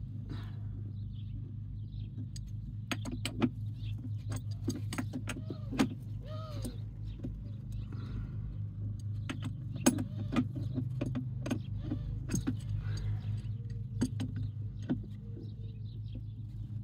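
Wrench clicking and knocking against the metal coaxial fittings of a cable line extender as a very tight fitting is worked loose, many sharp clicks scattered throughout. Under it runs a steady low hum of an idling vehicle engine.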